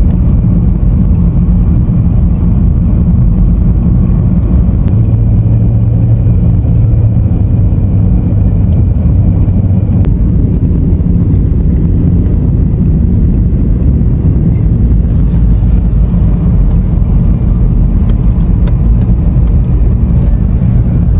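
Steady rumble of a car driving on the road, heard from inside the cabin.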